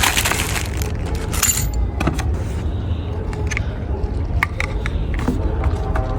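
Rustling and a series of small sharp clicks as packaging is handled, over a steady low rumble. The rustling is densest in the first second and a half; the clicks are scattered after it.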